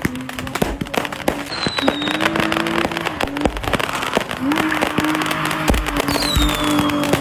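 Firecrackers crackling rapidly and continuously, a dense string of sharp pops. Underneath runs a steady droning tone that glides up in pitch twice.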